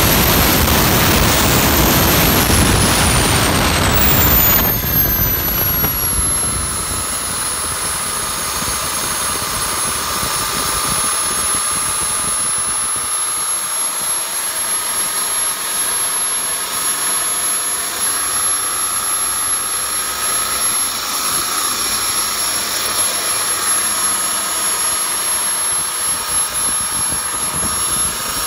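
Kingtech K45TP model turboprop turbine spooling down from high power to idle. Its very high whine peaks about a second in and then falls, and the loud rushing noise drops sharply about five seconds in. After that the engine runs on at idle with a steady high whine.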